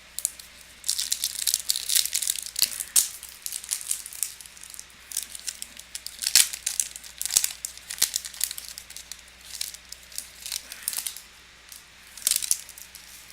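Foil trading-card pack wrapper being torn open and crinkled, an irregular run of crackles with one more short burst near the end.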